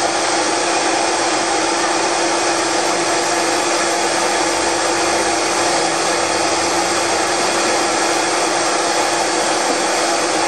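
Blender motor running steadily with a constant hum, blending silken tofu into a thick sauce.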